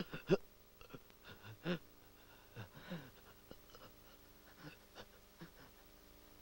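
A person's short, breathy sighs falling in pitch, several in a row, over a faint steady hum.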